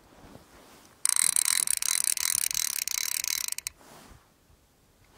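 Small ice-fishing rod's reel spun fast, a dense ratcheting whirr that starts abruptly about a second in and cuts off after about two and a half seconds.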